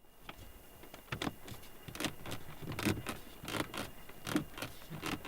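Dashboard trim of a third-generation Lexus GS rattling and clicking in short, irregular bursts, a few each second: loose interior plastics knocking against each other and against the windscreen.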